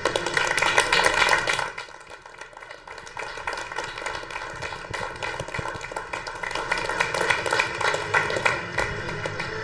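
Applause from a small group of people clapping. It is loudest in the first couple of seconds, dips briefly, then builds up again.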